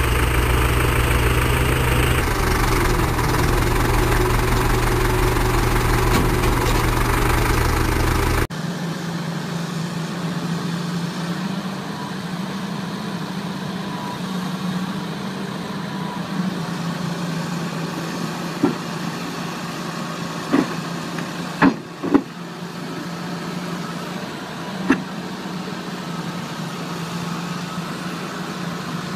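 Excavator engines running loud and low, cutting abruptly to a quieter, steady engine hum from a Hitachi tracked excavator, with several sharp knocks in the second half.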